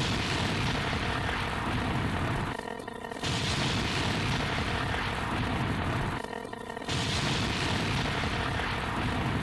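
A loud, dense mash of many overlapping sound effects and clips playing at once, heard as one continuous noisy roar. It thins out briefly twice, about three and a half seconds apart, then comes back at full level.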